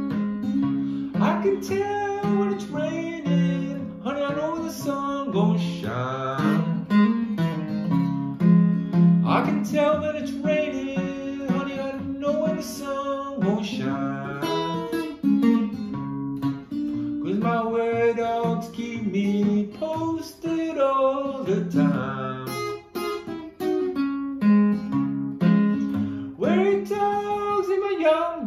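Acoustic guitar played fingerstyle in a country blues style, with a man singing over it at times.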